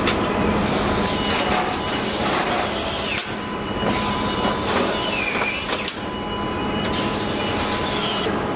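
Car assembly line floor noise: a steady machinery hum with a constant tone and hiss, overlaid with scattered clicks and clatter of tools and parts. There are a few brief high squeaks about halfway through.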